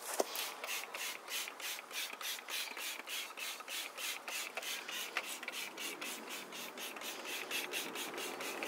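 Hand trigger spray bottle pumped rapidly, misting wheel cleaner onto a brake disc: a quick, even run of short hissing squirts, about four a second.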